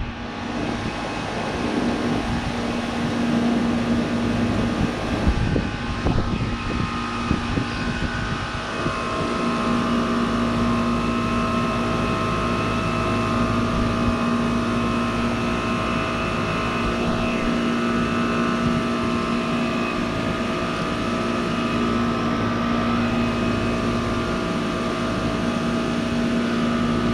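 2006 Goodman CPLE heat pump running through a defrost cycle, its compressor giving a steady hum with several held tones. The defrost is dragging on as a dry defrost, which is typical when the cold coil struggles to reach its termination temperature.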